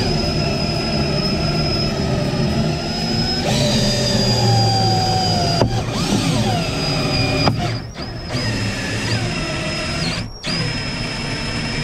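Power drill turning a suction-cup cord winder that reels in the cutting cord through the urethane holding an auto quarter glass. It runs as a steady whine with a low hum, stops and restarts briefly twice in the second half.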